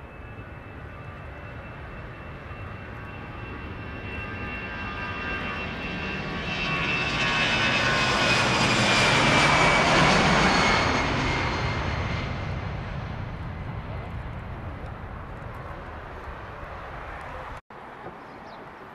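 Twin turbofan engines of an Airbus corporate jet on its take-off roll, swelling to a peak about halfway through as it passes close by and then fading, with a high whine that drops in pitch as it goes past. The sound breaks off suddenly near the end.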